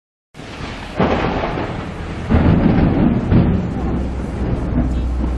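Thunder rumbling, with two heavier crashes about one and two seconds in, then dying down to a steady low rumble.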